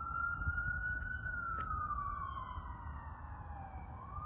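Siren wailing: the pitch holds high, slides slowly down over a couple of seconds, then climbs again near the end, over a steady low rumble.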